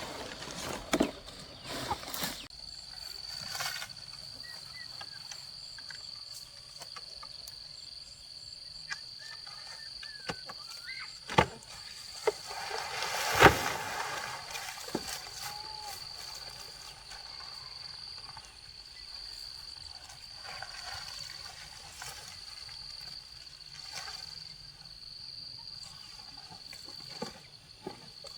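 A steady, high-pitched drone of insects, with scattered knocks and thumps; the loudest thump comes about halfway through.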